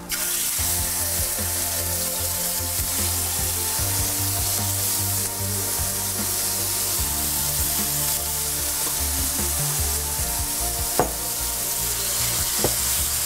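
Barbecue-sauced chicken thighs frying in clarified butter in a skillet, sizzling steadily from the moment they go into the pan. A couple of light clicks near the end.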